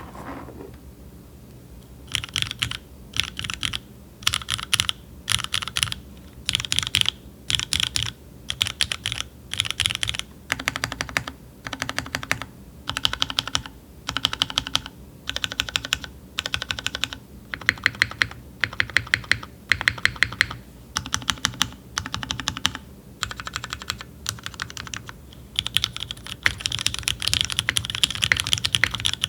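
Mechanical keyboard typing: vintage Cherry MX Black linear switches, lubed and sprung with 63.5 g slow springs, in a Merisi Works 500c with a full aluminium plate and GMK keycaps. After a quiet first two seconds, keys are struck in quick bursts of several strokes, about one burst a second with short pauses. Near the end the typing runs on without pauses.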